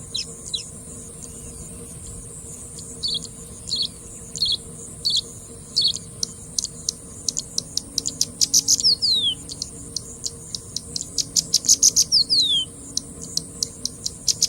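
Bushlark singing: a row of short high notes about one every two-thirds of a second, then a fast, clicky run of sharp chips with falling whistles mixed in. A steady high hiss runs underneath.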